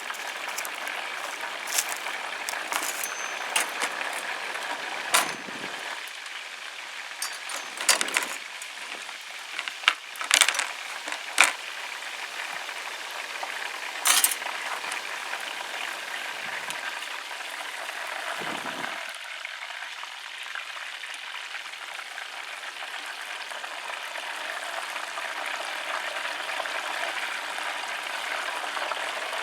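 Cornish hen deep-frying in hot oil, the oil sizzling and bubbling steadily. Several sharp clicks or clinks come through the first half.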